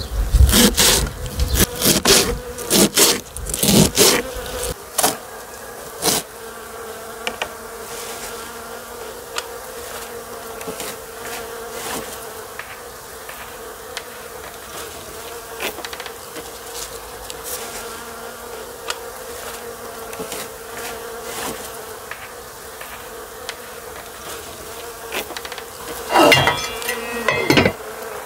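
Knife chopping wild onion leaves on a plastic cutting board: a quick, uneven run of chops in the first few seconds. Under it, a steady buzz of bees at the blossoming tree runs on alone after the chopping stops. Near the end there is a brief clatter of cookware.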